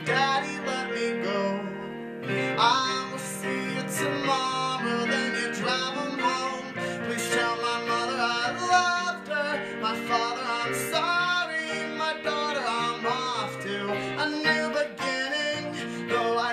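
Taylor acoustic guitar played steadily together with an M-Audio keyboard, a song's instrumental accompaniment.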